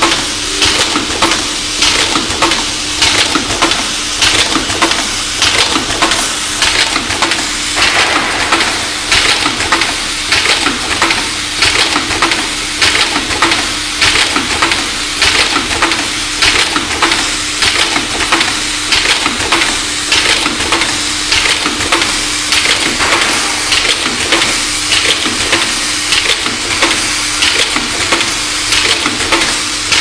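Automatic HDMI connector assembly machine running, a continuous fast clatter of small metal parts and mechanisms, pulsing in a regular cycle, over a steady hum.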